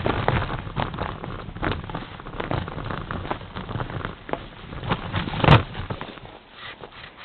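Mountain bike riding over a snow-covered woodland trail: tyres crunching and the bike rattling with irregular clicks and knocks, the loudest a sharp knock about five and a half seconds in. It quietens near the end.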